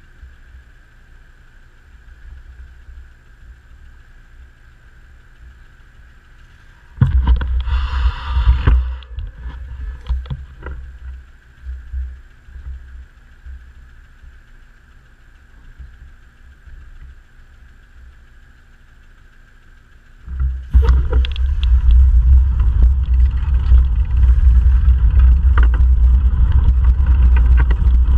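Faint street traffic while stopped at a light, with a brief loud noise about seven seconds in. About twenty seconds in, a loud, steady low rumble of wind buffeting the bicycle-mounted camera starts as the bike gets moving.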